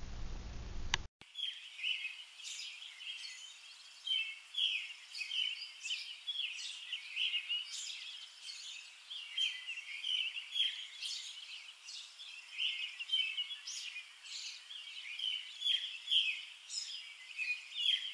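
Small birds chirping, many short high chirps in quick, irregular succession, starting about a second in after a brief low room hum.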